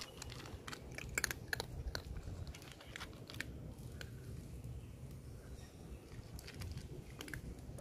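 Stray cats eating, crunching and chewing their food with irregular crisp crunches.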